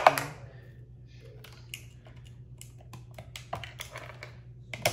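Small plastic clicks and taps of fingers plugging thin signal-wire connectors into an electric skateboard's dual speed controller, with a sharp knock at the start and another near the end.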